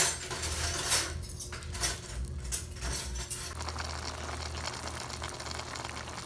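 Cooking in a wok of mixed vegetables. A few clattering scrapes and knocks of a utensil stirring in the pan come in the first few seconds, then a steady soft hiss of the food cooking.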